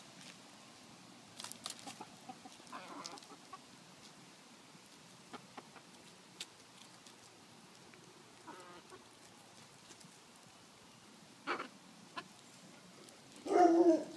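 Backyard hens clucking with a few short, scattered calls, the loudest just before the end.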